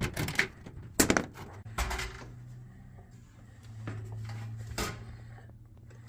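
Several sharp clunks and knocks, loudest about a second in and again near five seconds, from the sheet-metal access panel of a gas furnace being handled, over a low steady hum.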